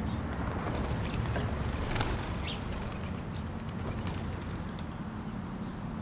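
A bird's wings flap sharply as it takes off about two seconds in, with a few short, high bird calls, over a steady low outdoor rumble.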